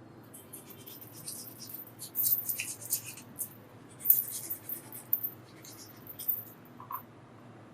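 Close scratching and scraping of a hand tool working wine cork, in a run of short, quick strokes, loudest a little after two seconds in and again about four seconds in.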